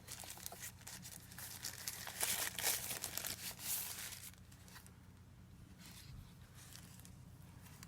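Packaging crinkling and rustling in irregular bursts as a wireless video doorbell is taken out of its box, stopping about four seconds in.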